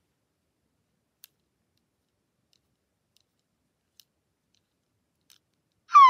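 Near silence broken by three faint small clicks from the plastic WowWee Fingerlings Sweet Tweets toy bird being handled. Right at the end the toy bird starts an electronic chirp, a whistle falling in pitch.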